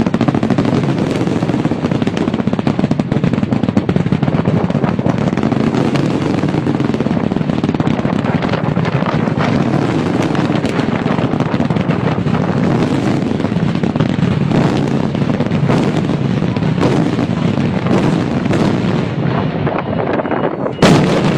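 Daytime fireworks going off in a dense, continuous barrage: many charges firing and bursting at once, with a louder burst near the end.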